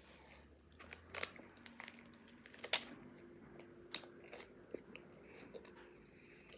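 Close-up eating sounds: chewing a banh mi, the crusty baguette crunching faintly now and then, with a sharper crunch a little under three seconds in.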